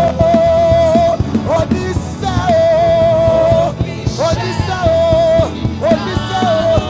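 Live worship music: a solo singer holds long, wavering notes, breaking between phrases, over full band accompaniment.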